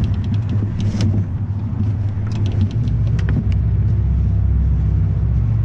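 Motorboat engine running under power in reverse, a steady low drone that grows firmer about halfway through. Scattered sharp clicks come over it in the first three seconds.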